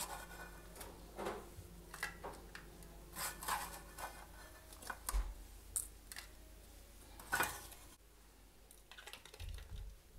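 Faint scattered crackling and light clicking as crisp, ghee-toasted kunafa shreds are crumbled by hand into plastic dessert cups, with a few sharper clicks from the cups and dishes being handled.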